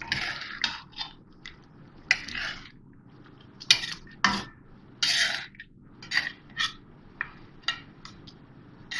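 Flat metal spatula scraping and clinking against a karahi (wok) while stirring chicken pieces through a thick cream sauce: irregular strokes, some ending in sharp clinks of metal on metal.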